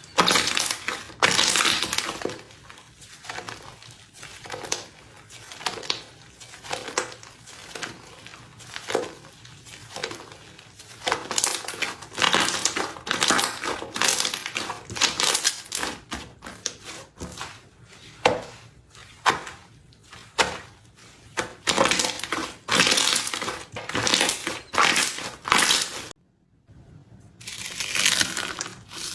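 Crispy slime being pressed and worked, crackling and popping in repeated irregular bursts, with a brief break about three quarters of the way through.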